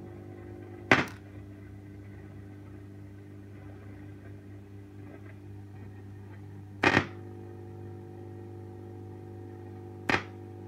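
Idling valve guitar amplifier (early-1960s Davoli D531T) putting out a steady mains hum and buzz through its speaker, the noise of an ungrounded chassis on a two-prong power cord, which grounding the chassis lessens. Three loud pops break in, about a second in, near seven seconds and near ten seconds, as the grounding alligator clip is put to and taken off the chassis.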